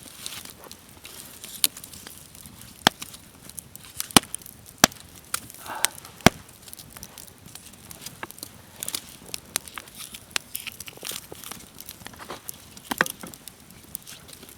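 Wood campfire burning low, crackling with irregular sharp pops, a few of them loud.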